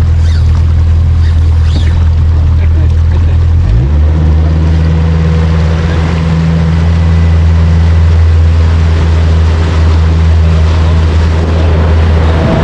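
Boat's outboard motor running steadily under way, its note stepping up slightly about four seconds in, over rushing water and wind noise.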